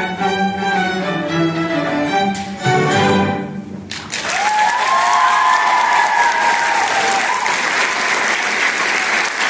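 String orchestra of violins, cellos and double basses playing its closing chords, stopping about four seconds in; the audience then breaks into applause, with a cheer rising above it.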